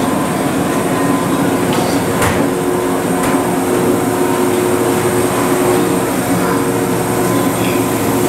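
Izukyu 2100 series electric train, heard steadily running and humming, with two sharp clicks about a second apart a couple of seconds in.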